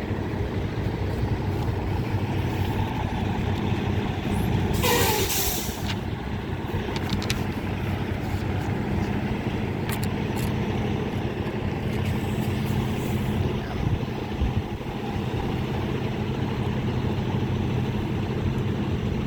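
Semi-truck diesel engine idling steadily, with a short hiss of air brakes about five seconds in.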